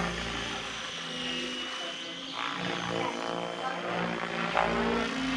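Electric XLPower 550 RC helicopter flying, its Azure 560 rotor blades and brushless motor making a steady whine and blade noise. The pitch rises and falls several times as it manoeuvres.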